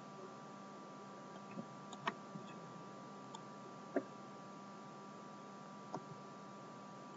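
Faint room tone with a steady low electrical hum, broken by a few isolated sharp clicks, the loudest about two and four seconds in and another near six seconds: computer mouse clicks.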